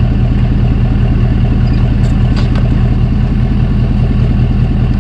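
Truck engine idling steadily close by, with a fast even running rhythm. A couple of faint taps come about two seconds in.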